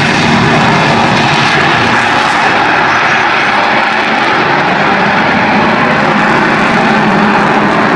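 Avro Vulcan bomber's four Olympus jet engines running loud and steady during its display flight, with a dense rushing noise whose high end fades after about three seconds.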